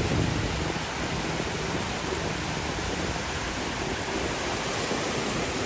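Steady rush of surf washing onto a beach, an even hiss with no distinct events.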